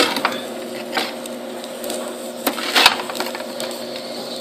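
Metal spatula scraping and clicking against the perforated metal pan of a Presto Pizzazz pizza oven as fried eggs are pried loose, with sharp scrapes at the start and about three seconds in. A steady low hum runs underneath.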